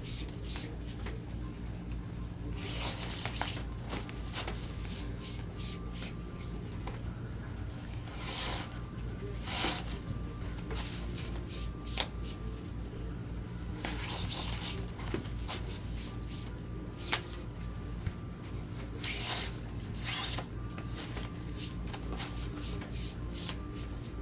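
Rustling of a gown's fabric and corset-back ties as they are pulled tight through the lacing loops, in several short bursts with a few small clicks, over a steady low hum.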